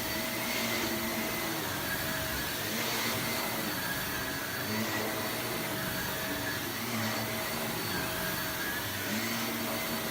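Shark vacuum cleaner running on a rug, a steady motor whine whose pitch dips and recovers about every two seconds.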